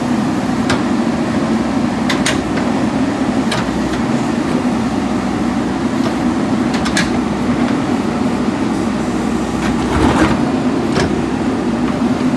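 JCB backhoe loader's diesel engine running steadily under working load, with several short sharp knocks scattered through.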